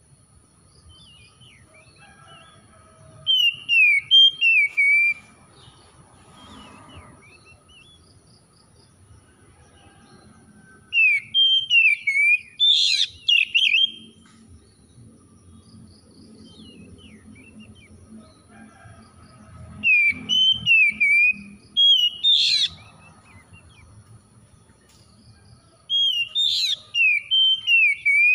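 Oriental magpie-robin singing in four loud bouts of quick, sliding whistled phrases a few seconds apart, with softer chirps in between. A faint, thin, steady high whine runs underneath.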